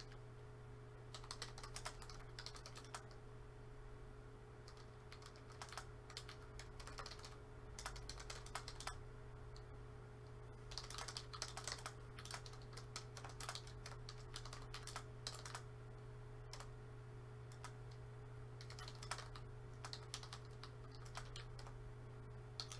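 Typing on a computer keyboard: quick runs of key clicks broken by short pauses, over a steady low hum.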